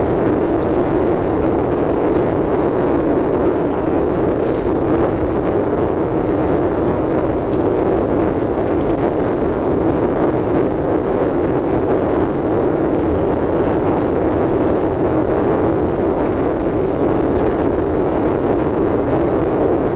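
Steady drone of a car in motion, road and engine noise heard from inside the cabin.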